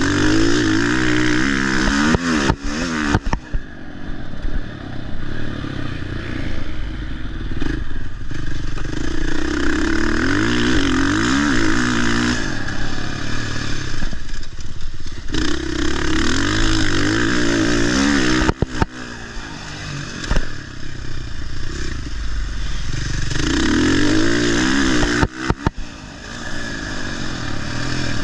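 Motocross bike engine revving up and backing off again and again while being ridden on a track, the pitch climbing and falling with each pull of the throttle, and a few brief sudden drops in sound along the way.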